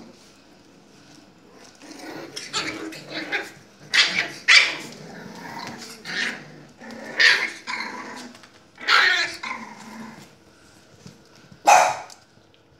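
Puppies barking and growling at play: a run of short yaps and growls through the middle, then one last sharp bark near the end.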